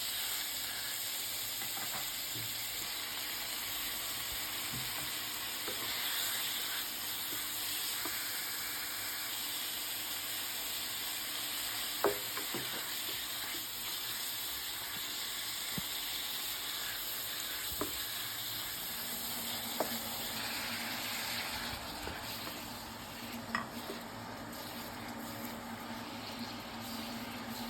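Food stir-frying in a hot pan: a steady sizzle, with a few sharp clicks of the spatula against the pan.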